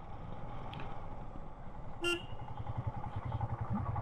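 Motorcycle engine running under way, its low exhaust pulses growing louder and more regular from about two and a half seconds in. A short horn toot sounds about two seconds in.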